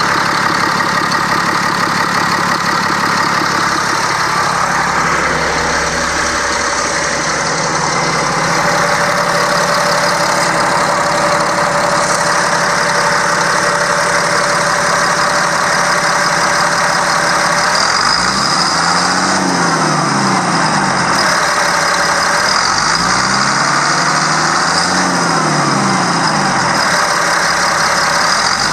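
Caterpillar C7 7.2-litre inline-six diesel engine of a 2007 Freightliner M2, heard close up under the open hood, idling steadily.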